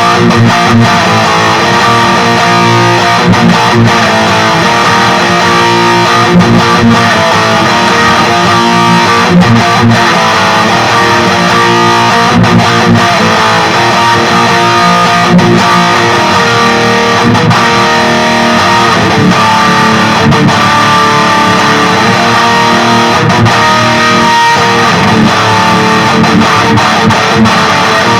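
Distorted electric guitar with active pickups, played through a Peavey Vypyr 15 modelling amplifier on its Peavey XXX high-gain amp model. It is riffing continuously with sustained chords and notes, with a thick, heavy, overdriven tone.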